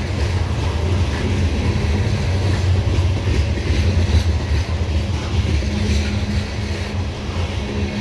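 Loaded coal hopper cars of a long freight train rolling past: a loud, steady, heavy rumble of steel wheels on rail, with a faint steady hum running under it.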